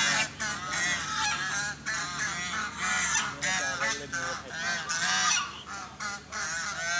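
Waterfowl honking repeatedly: many short, arched calls following one another a few times a second.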